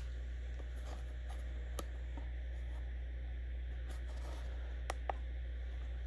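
Steady low hum of the garage's room tone, with a few faint clicks and knocks, about three, scattered through it.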